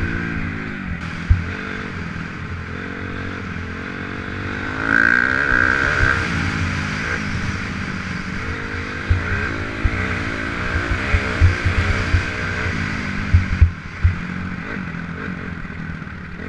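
Dirt bike engine running hard, its pitch rising and falling over and over as the rider opens and shuts the throttle through the corners, with scattered low thumps over the bumps.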